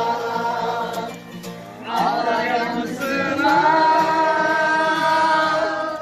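A group of people singing together to an acoustic guitar, with a long held note in the second half.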